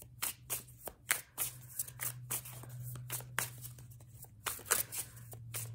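Tarot cards being shuffled by hand: a quick, irregular run of papery flicks and snaps, several a second, over a low steady hum.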